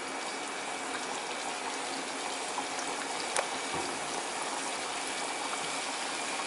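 Adhirasam, a flattened disc of sweet rice-flour dough, deep-frying in hot oil in a kadai: a steady, even sizzle of bubbling oil. One light click about three and a half seconds in.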